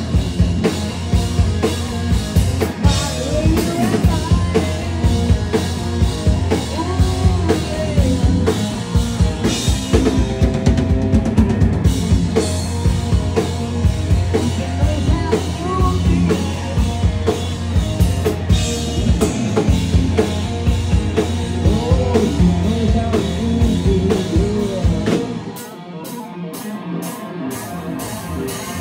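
Live hard rock band playing at full volume, with the drum kit prominent and wavering melodic lines over a heavy low end. About three seconds from the end, the bass and kick drum drop out and the music gets quieter, then the full band comes back in.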